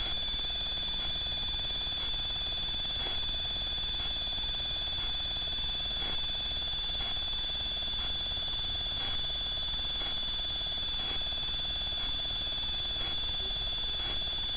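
Steady high-pitched electronic whine with a faint tick about once a second over a low hiss: the self-noise of a Dörr BolyGuard Multi 5.0 IR trail camera's recording electronics.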